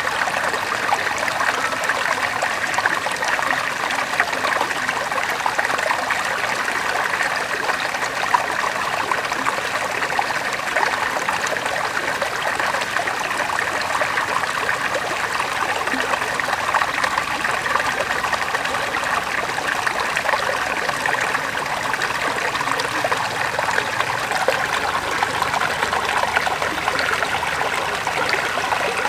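River water flowing and babbling over rocks, a steady dense splashing rush with fine trickling detail.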